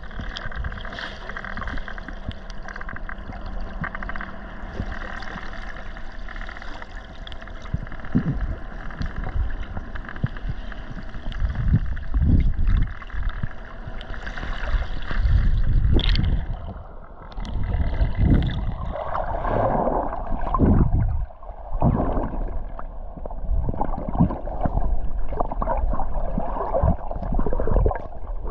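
Water sloshing and gurgling, with irregular low thumps. About halfway through the higher sounds fall away and it turns muffled and bubbly.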